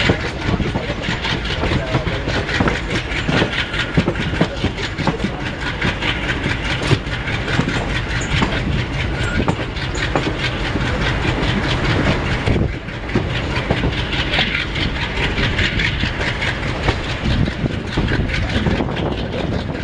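Passenger train rolling out over the track: wheels clicking and clattering over rail joints above a steady low rumble.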